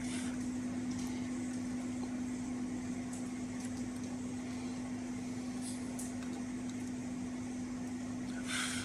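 Steady hum with one constant low tone over a faint even background noise, and a short hiss near the end.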